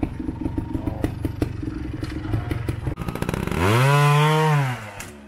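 Trial motorcycle engine running low with scattered knocks, then revved once about three and a half seconds in: the pitch rises, holds for about a second and drops back.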